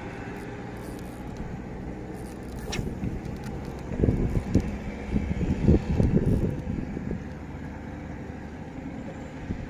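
Wind rumbling on the microphone, with stronger low gusts in the middle and a single brief click about three seconds in.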